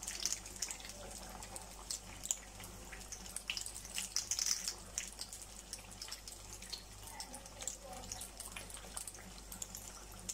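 Samosas deep-frying in hot oil: a steady sizzle full of rapid, irregular crackles and pops.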